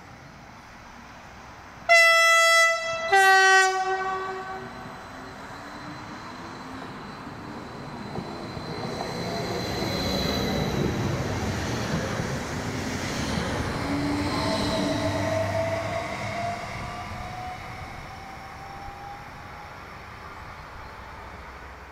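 Two short blasts of a VIAS Stadler FLIRT electric train's horn, the first higher and the second lower, followed by the train running past, its noise swelling and then fading, with a faint rising whine.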